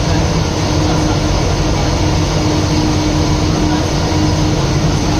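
Train running: a steady rumble with a constant hum.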